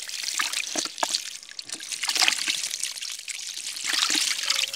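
Water splashing and trickling in a plastic bucket holding live fish, in uneven bursts of small splashes.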